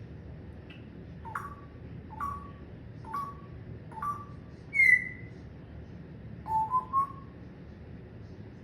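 Pet parrot whistling: four short whistles about a second apart, then a louder, higher whistle that falls in pitch, followed by a quick rising run of three notes.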